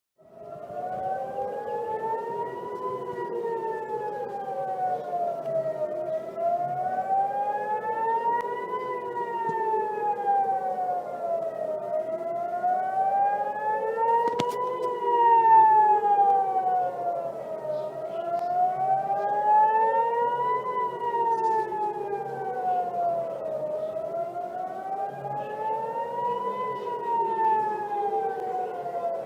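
Israeli civil defense air-raid sirens wailing, a slow rise and fall about every six seconds, with a second siren sounding out of step with the first. A single sharp click about halfway through.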